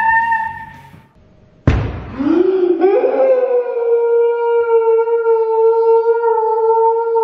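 A giant lotion-filled balloon bursting with a single loud smack about a second and a half in, between two long held high-pitched screams; the second scream slides up and holds for about four seconds.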